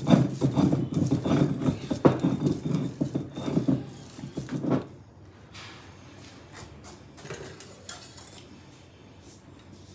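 Cylindrical stone roller rolled back and forth by hand over a stone grinding slab (sil-batta), crushing garlic cloves: quick, rhythmic stone-on-stone knocking and scraping that stops about five seconds in, leaving only a few faint knocks.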